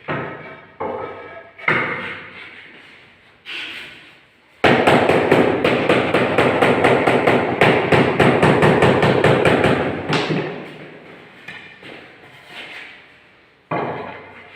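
Mallet knocking on a marble floor tile to bed it into the mortar: a few single knocks, then a rapid run of strikes, several a second, for about five seconds, fading out, and another knock near the end.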